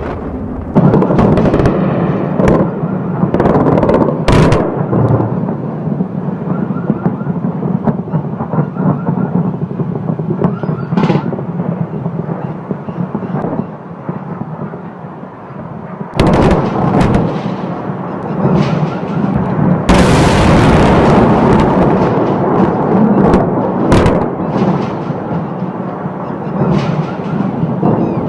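Aerial bombs and missiles exploding over a city: a string of sharp blasts over a continuous rolling rumble. A longer hissing blast comes about twenty seconds in.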